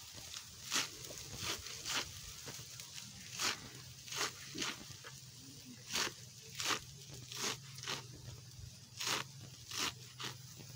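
Short scratchy rustles, irregular at about one or two a second, as a young goat's fur and a hand rub close against the phone's microphone. A faint low steady hum sits underneath from about four seconds in.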